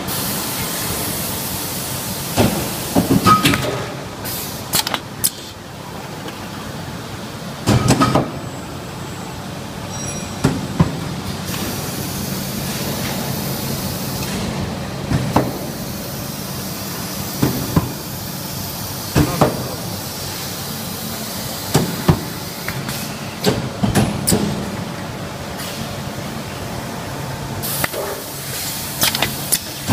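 Automated sheet-metal bending line for chest-freezer side panels running: a steady factory hum with sharp metallic clanks and clicks from the machine every few seconds.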